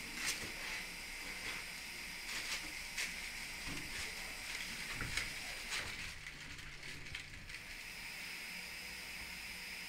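Steady hiss of dental surgical suction, with scattered light clicks of metal instruments over the first six seconds or so as bone graft granules are packed into the extraction socket.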